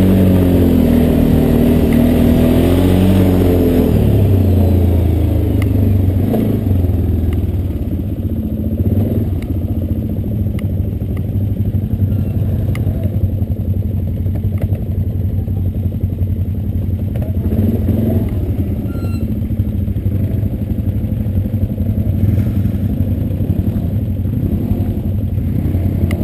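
ATV engine running at low speed on a dirt trail, its pitch rising and falling for the first few seconds before settling to a steady low note. Occasional clicks and rattles come from the machine over rough ground.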